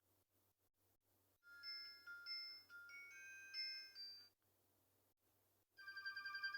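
Nokia 130 message alert tones playing through the phone's small speaker. A short chime-like melody of stepping notes lasts about three seconds. After a pause, a second tone, a quick trill, starts near the end and is cut short.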